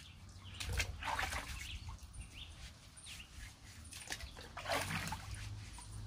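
Sweet potatoes being scrubbed with a sponge in a bucket of water: water sloshing and dripping, in two spells about a second in and again near the five-second mark.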